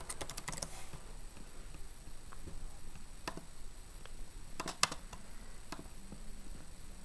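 Computer keyboard typing in a quick run of keystrokes, then a few scattered clicks over the next seconds, the loudest a close double click near the five-second mark.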